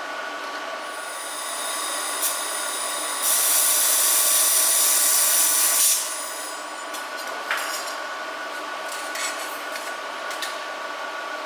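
Handheld fibre-laser welder, Pokkels P-Weld 1500, welding 2 mm aluminium: a loud, steady hiss for about three seconds in the middle, then scattered sharp crackles and clicks. A faint steady whine runs underneath throughout.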